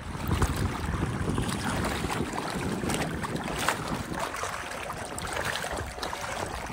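Wind buffeting the microphone over irregular water splashing, as on a small boat under way.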